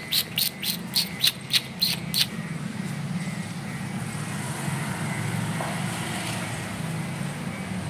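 A bird chirping: a quick run of about ten short, high chirps, roughly four a second, that stops a little past two seconds in, over a steady low hum.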